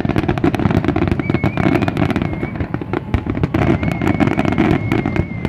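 Fireworks display: a dense, rapid barrage of aerial shells bursting, bangs and crackling overlapping with no gaps. A thin wavering high whistle sounds twice among the bangs.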